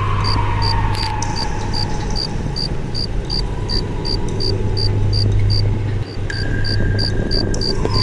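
A cricket chirping in a steady rhythm of about three chirps a second, over a constant low hum. A faint whistle-like tone slides downward at the start, and another steady tone comes in about six seconds in.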